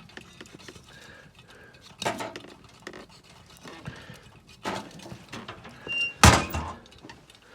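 Logs of firewood knocking and clattering as they are loaded onto a wood fire: several separate clunks, the loudest a heavy one about six seconds in.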